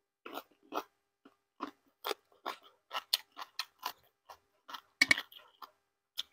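A person chewing and crunching food, with irregular short crunches and mouth clicks about two or three a second. The loudest burst comes about five seconds in.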